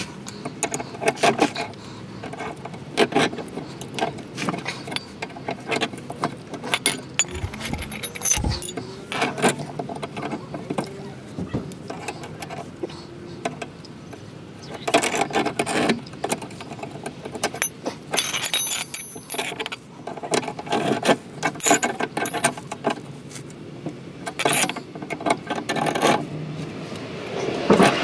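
Metal tools clinking and rattling in irregular clusters of sharp clicks: a spanner at work tightening the lock nut on a caravan's handbrake cable.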